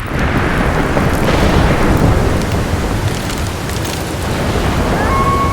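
Dramatic rumbling sound effect of a rushing flood: a loud, deep roar that sets in suddenly at the start and holds. About five seconds in, a single held high tone joins it and sags slightly in pitch.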